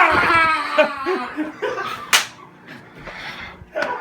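A startled yell trails off and breaks into laughter, with a sharp smack about two seconds in.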